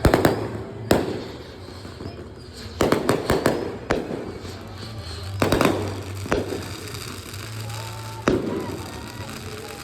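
Aerial fireworks bursting: a string of sharp bangs, each trailing off in a rumble. There is a quick run of several bangs about three seconds in, and a last single bang about eight seconds in.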